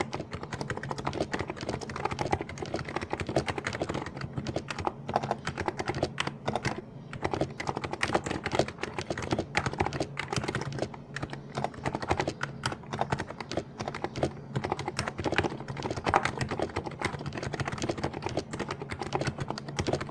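Fast, continuous typing on a stock (unmodified) Niz Plum Micro84 keyboard with electro-capacitive switches: a dense run of key presses with no real pauses.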